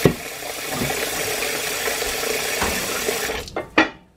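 Kitchen faucet running onto a cast iron griddle being rinsed in the sink, with occasional knocks of the iron against the sink. The water shuts off about three and a half seconds in, followed by two sharp clunks as the griddle is set down.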